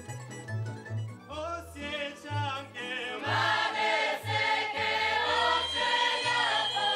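Mixed folk choir singing a Slavonian folk song in unison over a string band with a plucked bass line. The voices come in a little over a second in and swell to full strength about three seconds in.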